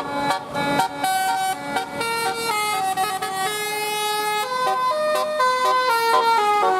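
Basuri telolet bus horn playing a tune: loud, bright pitched horn notes stepping from one note to the next every fraction of a second without a break.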